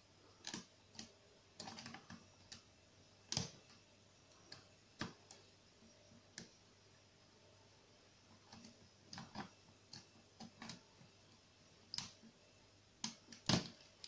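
Faint, irregular metallic clicks and ticks of a lock pick working the pin stack of an Arrone brass cylinder lock held under a tension wrench, with a few sharper clicks near the end.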